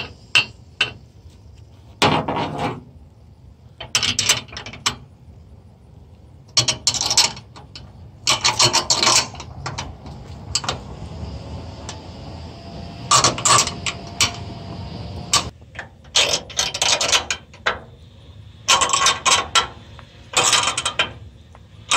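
Ratchet wrench clicking in short bursts of strokes with pauses between, running 5/16 flange nuts down onto bolts through a steel trailer frame.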